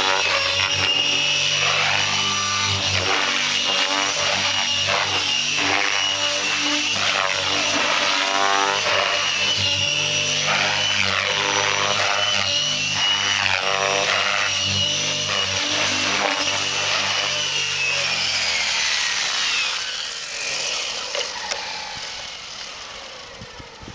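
Electric RC helicopter with a Scorpion brushless motor flying 3D aerobatics: rotor blade noise under a steady high motor whine, with pitch sweeping up and down as it passes. About eighteen seconds in the whine falls and the sound fades as the rotor spools down after landing.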